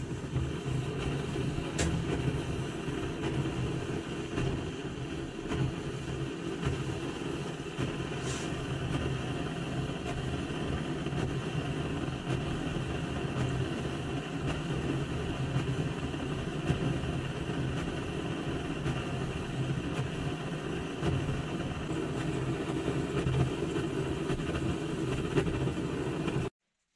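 A workshop machine's electric motor running steadily, with a couple of brief clicks early on. The sound cuts off abruptly near the end.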